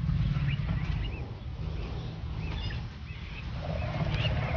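Birds chirping in short arched calls over a steady low rumble.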